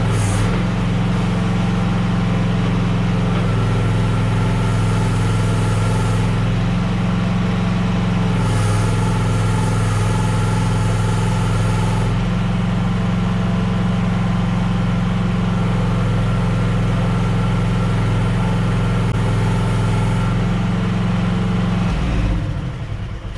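Gasoline engine of a QK16R mini skid steer running steadily, then shut off about a second before the end, winding down.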